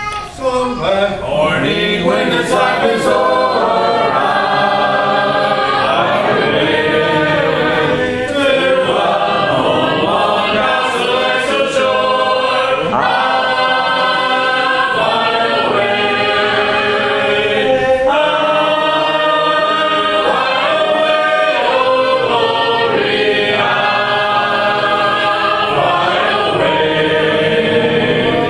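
A church congregation singing a hymn a cappella, many voices together in long held notes, led by a song leader beating time.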